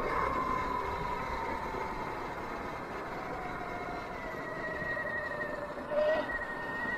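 Sur-Ron electric dirt bike's motor whine, falling slowly in pitch as the bike slows, over steady wind and road noise.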